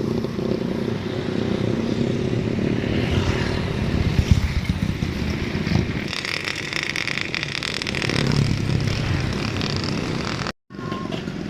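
Street traffic with motorbikes and cars running past at close range, steady throughout, with a stretch of rapid scraping and clattering about halfway through.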